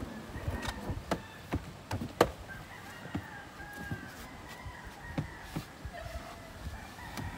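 Sharp plastic knocks and clacks as the panels of a Porta Bote folding boat are unfolded and fitted into the hull, the loudest about two seconds in. Birds call in the background.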